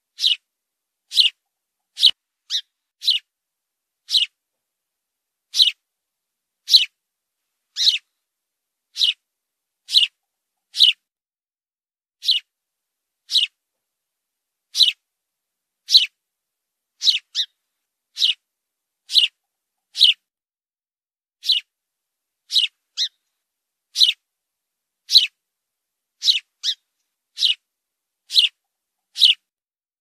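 House sparrow chirping: short single chirps about once a second, now and then two in quick succession, with clean silence between.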